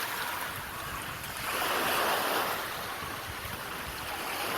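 Rushing, splashing water from the aquapark's pools, swelling for about a second midway through.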